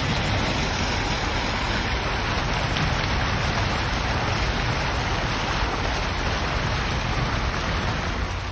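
Steady splashing and rushing of water from many small fountain jets shooting up and falling back onto the paving.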